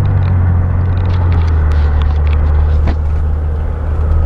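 Car interior noise while driving: a steady low engine and road drone with tyre hiss. The drone drops slightly in pitch about a second and a half in.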